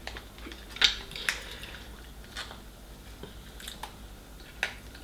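A handful of sharp clicks and cracks, the strongest about a second in, as king crab leg shells are broken open and picked over, with the odd clink of a utensil or plate.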